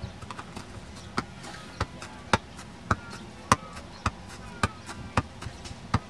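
A steady run of sharp knocks, about one loud one every half-second or so with fainter clicks between, like a ball being struck or bounced over and over.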